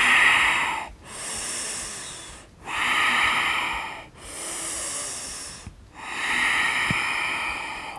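A woman breathing slowly and audibly, in and out, with a hiss. The breaths alternate louder and softer, each lasting one to two seconds.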